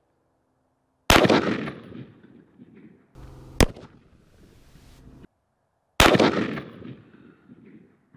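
Two 5.56 mm rifle shots about five seconds apart, each with a long echoing tail across the range. Between them comes a single sharp crack of a round striking the Level III+ ceramic armor plate, heard close to the target.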